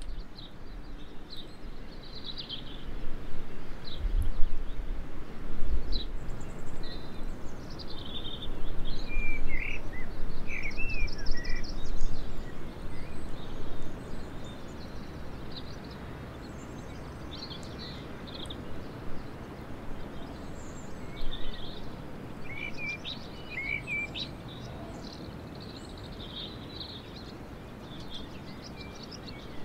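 Wild songbirds chirping and trilling in short scattered phrases over a steady outdoor hiss. A low rumble comes and goes through the first half.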